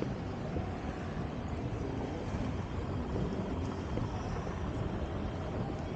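Steady rumbling background noise of an airport terminal, heaviest in the low end, with no distinct events.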